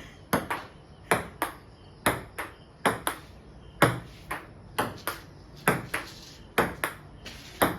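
Table tennis rally: a ping-pong ball clicking sharply off the paddles and the table in steady back-and-forth, about two clicks a second.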